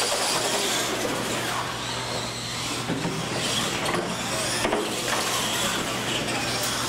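Two radio-controlled monster trucks racing side by side on a concrete floor: a steady whirr of motors, drivetrains and tyres, with a whine that rises and falls in pitch as they speed up and slow down.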